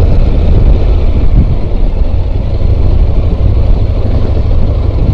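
A motorcycle running at low speed over a dirt road, heard from the rider's camera as a steady low rumble of engine and riding noise.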